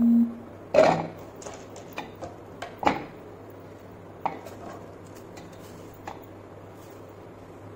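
Chopped carrot pieces being gathered off a wooden cutting board and dropped into the plastic bowl of a mini chopper: a few knocks and clatters in the first three seconds, then a few light taps. A short low hum sounds at the very start.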